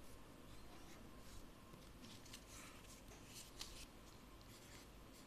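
Faint scratching of a ballpoint pen writing on lined notebook paper, in short strokes with pauses between them.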